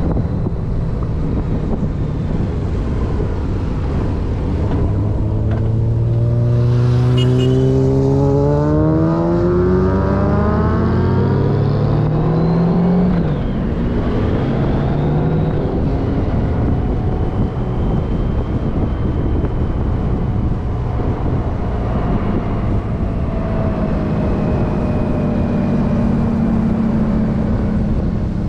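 A vehicle engine accelerating: its pitch climbs steadily for about nine seconds, drops suddenly, then rises and falls a few more times, over a steady rushing noise.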